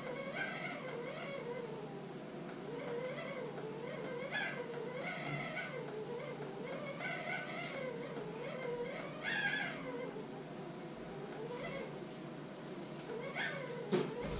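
A pet animal crying over and over: drawn-out whining calls, each rising and falling in pitch, about one every second or so, with a short knock near the end.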